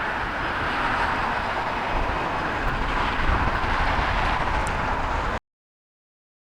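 Jet airliner engine noise: a steady roar with a low rumble underneath, swelling slightly, then cut off abruptly about five seconds in.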